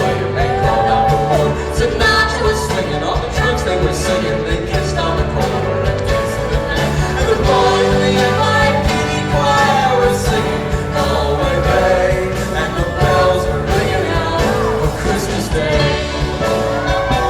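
A band playing a folk-rock song, with singing over guitars and a steady bass line.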